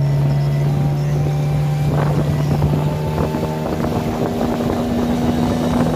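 Small motorboat's engine running steadily under way, with rushing water and wind on the microphone. The engine note changes about halfway through.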